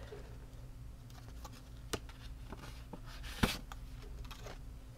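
Paper cash envelope and cash binder being handled: faint rustling with a few light clicks, the sharpest about three and a half seconds in.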